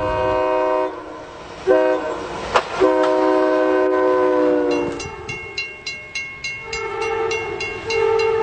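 Locomotive multi-chime air horn sounding in three blasts, the last long one dipping slightly in pitch as the train passes. Then a railroad crossing bell rings at about three strokes a second, and another train horn comes in near the end.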